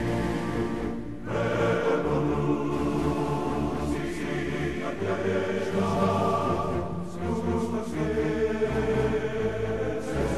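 Background music: slow, held chords over low bass notes that change every second or so.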